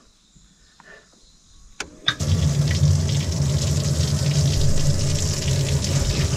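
A bass boat's livewell pump switched on with a click about two seconds in, then running steadily with a low hum and a loud rush of water filling the livewell to hold the caught bass.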